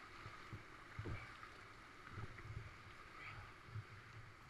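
Rushing river whitewater around a kayak, a steady, fairly faint hiss, with a few low thumps.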